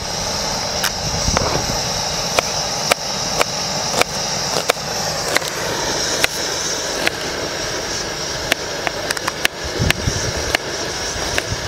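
Sharp, irregular clicks or light knocks about every half second over a steady hiss.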